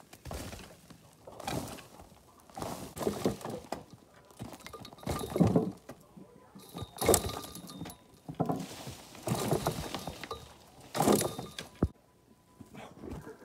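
Chunks of an old earthen wall being broken off with a long-handled tool and crashing down as loose earth and rubble, a series of crumbling thuds every second or two.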